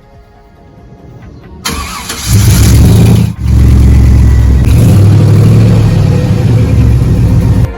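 A 2002 Chevy Silverado's engine starting up about two seconds in on freshly changed oil, then running loudly and steadily, with a brief dip shortly after it catches; the sound cuts off suddenly near the end.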